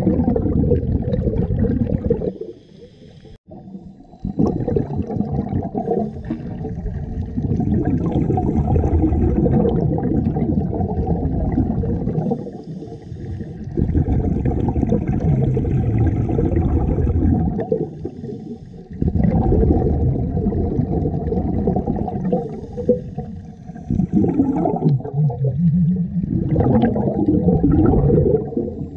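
Scuba diver's regulator and exhaled bubbles heard underwater: long, loud stretches of low bubbling noise broken by brief quiet gaps about every five to ten seconds.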